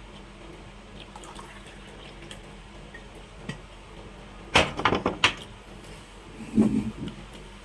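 Close-miked eating sounds: a quick run of sharp clicks and wet smacks about four and a half seconds in, then a softer, lower cluster about a second later.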